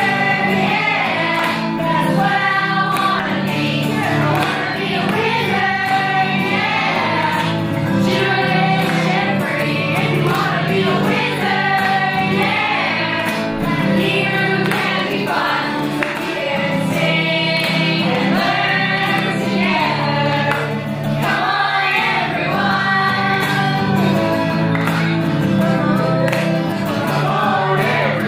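Background song: a group of voices singing over instrumental backing with a steady bass line.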